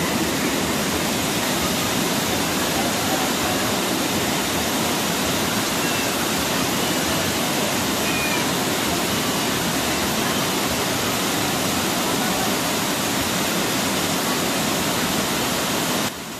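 Steady rush of water spilling over low stepped stone weirs and small cascades in a shallow rocky river. It cuts off suddenly just before the end.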